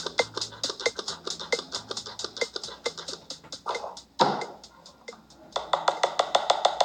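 Background electronic music with a fast, even percussive beat and bass notes; it breaks off about four seconds in with a short swishing sweep, then a new beat starts near the end.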